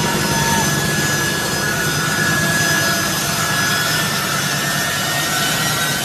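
Jet aircraft engines running: a steady, loud noise with a high whine that drifts slowly down in pitch.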